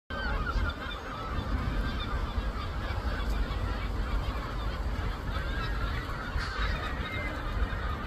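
A flock of gulls calling over one another, with short harsh overlapping cries through the whole stretch. A steady low rumble runs beneath.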